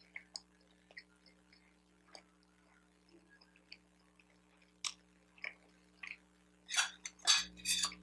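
Close-miked chewing of a bacon, egg and Swiss cheese everything-bagel sandwich: soft, wet mouth clicks and smacks, with a few louder bites or munches in quick succession near the end.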